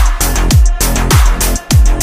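Background music with a beat: a deep kick drum that drops in pitch, about two hits a second, under busy higher sounds.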